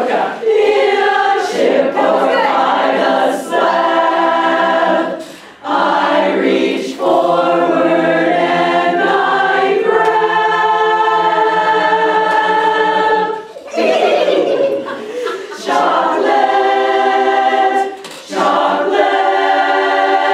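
Women's chorus singing a cappella in close harmony. Long held chords are broken by short pauses between phrases, about five and a half seconds in, around fourteen seconds and near eighteen seconds.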